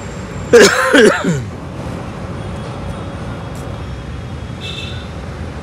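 Steady background hum of road traffic, with a brief spoken phrase about half a second in.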